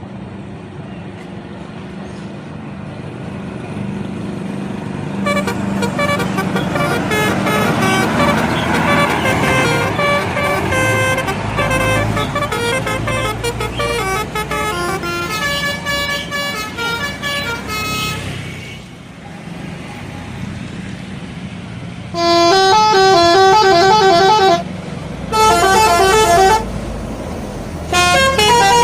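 Bus telolet horn, a multi-tone musical horn, playing a rapid run of changing notes over the running engine. Near the end it sounds three loud blasts of alternating notes.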